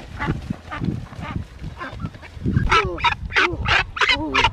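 White domestic duck quacking repeatedly in alarm as it is caught and held by the legs. The calls are fainter at first, then from about halfway they come loud, about three a second.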